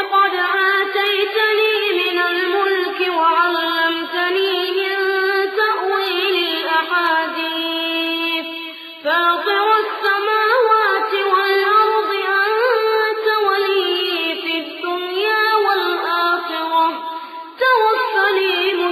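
Quran recitation chanted melodically in tajweed style by a young reciter's high voice, with long drawn-out held notes that bend up and down. There is a short breath pause about nine seconds in and another near the end.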